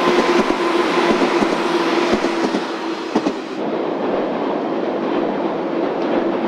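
JR West 201 series electric commuter train running past, a steady hum over the rolling noise with wheels clicking over rail joints. About three and a half seconds in the sound turns duller and steadier.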